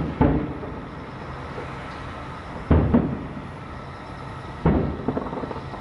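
Distant aerial firework shells bursting: five booms, some coming in quick pairs a quarter-second apart, each trailing off in a rumble.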